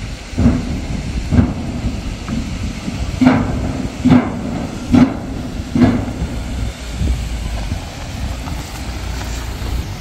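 Steel Bailey bridge deck clanking under a Ford Endeavour SUV's wheels as it drives across: a series of loud metallic clanks, each with a short ring, about six in the first six seconds. After that comes the low rumble of the SUV's tyres and engine on the dirt road.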